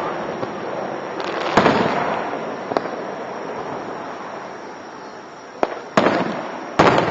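Aerial fireworks shells bursting: one bang about a second and a half in, then two more close together near the end, with a couple of sharper cracks between. Each bang trails off in a long rolling rumble.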